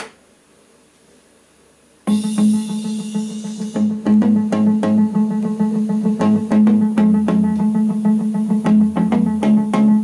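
Faint hiss, then music with a steady drum beat starting suddenly about two seconds in: a cassette playing through a Grundig radio-cassette recorder.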